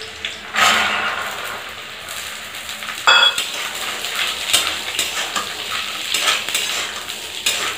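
Green peas tipped into a hot kadhai of oil and fried onions, with a burst of sizzling under a second in. There is a ringing metal clang about three seconds in, then a spatula scrapes and stirs the peas against the pan while they sizzle.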